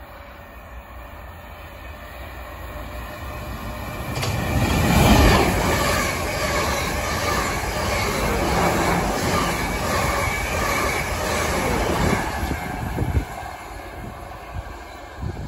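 Coupled Class 444 Desiro electric multiple units passing at speed: the rush builds over about four seconds as the train approaches, peaks as the front goes by, and holds with a regular beat of wheels on the rails for about eight seconds before fading as the rear passes.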